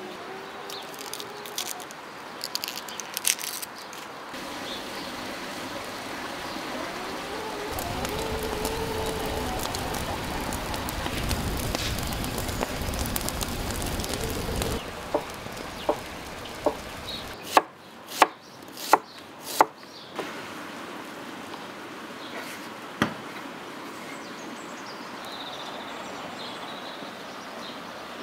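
Wood fire burning, a steady rush of flame with sharp crackles and pops from the logs, followed by a few single knocks.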